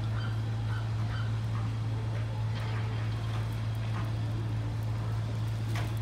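Steady low hum with a bird calling in short repeated notes during the first second or so, and a few sharp clicks or knocks later, the loudest near the end.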